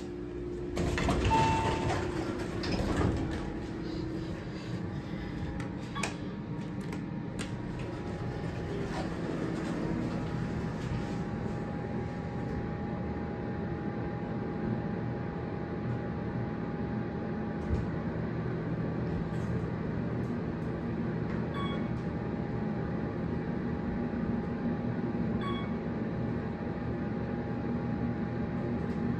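Otis hydraulic elevator: the doors slide open about a second in, then the car rises with the steady hum and whine of its hydraulic pump unit. Three short high beeps sound about four seconds apart near the end.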